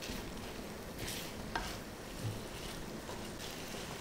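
Wooden spatula stirring and scraping khoya (mawa) around a frying pan, with a quiet sizzle of it roasting in ghee. The khoya is being roasted until light brown.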